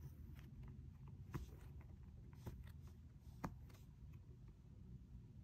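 Faint, soft pops, roughly one a second, from the stiff quiet side of a silicone crab pop-it fidget being pressed.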